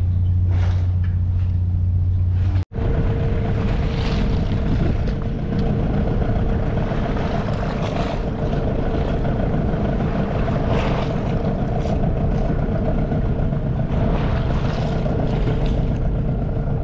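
A low steady hum, cut off sharply about three seconds in, then a 12 hp Hangkai outboard motor running at a steady speed, pushing the small boat along: a constant drone over a rough rushing wash.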